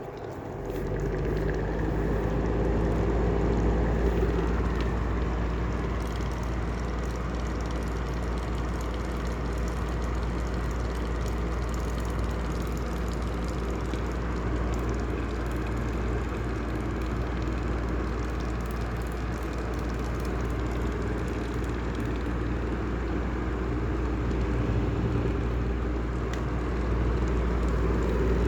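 Heller style 2 exhaust fan coming up to speed in the first second, then running steadily: a deep motor hum with a rough noise over it from its bad bearings.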